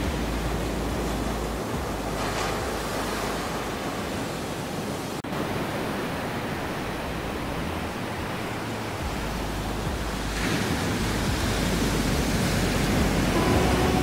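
Ocean surf breaking on a sandy beach: a steady rushing wash that swells twice as waves come in. Soft sustained notes of music begin near the end.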